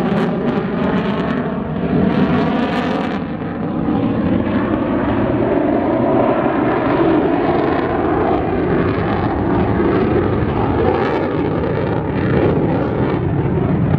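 Lockheed Martin F-22 Raptor's twin Pratt & Whitney F119 turbofans in afterburner: loud, continuous jet noise whose pitch bands slowly drift and waver as the fighter turns overhead.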